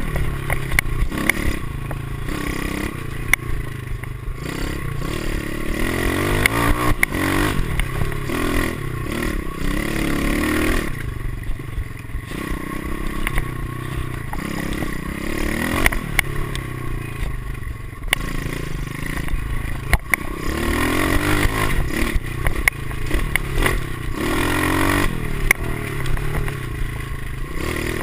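Pit bike's small four-stroke single-cylinder engine revving up and easing off again and again while riding a rough dirt trail, with clattering and sharp knocks from the bike over the bumps.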